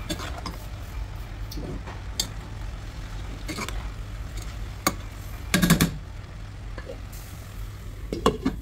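Metal spatula scraping and knocking against a wok as chopped vegetables are stirred without oil, over a low steady hum. A rattle of several knocks comes about halfway through, and near the end a metal lid clinks onto the pan.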